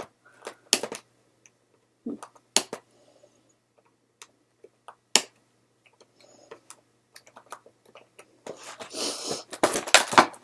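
Doll packaging being handled: a few sharp separate clicks of plastic, then denser rustling and crinkling of the packaging from about two thirds of the way in.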